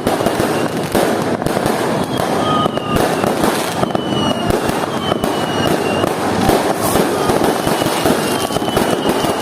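Many New Year's fireworks and firecrackers going off at once: a continuous dense crackle of bangs, with several short whistles that fall slightly in pitch.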